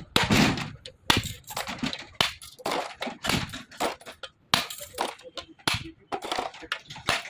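Hard objects being handled: an irregular run of sharp knocks, clatters and scraping or crunching noises, a few each second.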